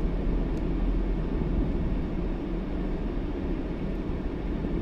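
Steady road and engine rumble of a car driving along a paved road, heard from inside the cabin.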